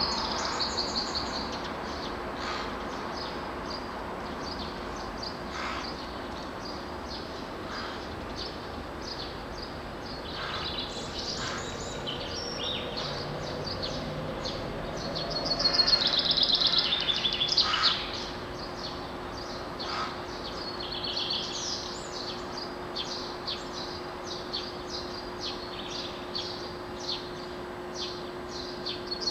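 Dawn chorus of several songbirds: overlapping chirps and song phrases, with a loud burst of song about halfway through, over an even background noise and a faint steady hum.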